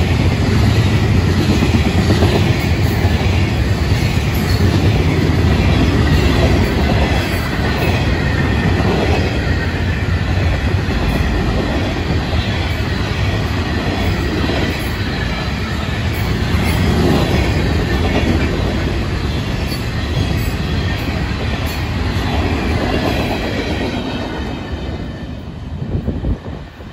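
Freight cars of a passing freight train rolling by close to the track: a steady rumble of steel wheels on the rails with a thin wheel squeal above it, fading near the end as the train draws away.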